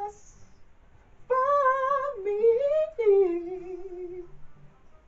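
A woman sings a short wordless melody, humming or vocalising a few held, wavering notes that start about a second in; the last note slides down and is held before fading.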